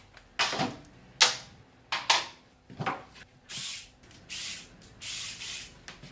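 Hand tools working on the hot clutch-cover bolts of a motorcycle engine: four sharp clicks about a second apart, then several short hissing noises.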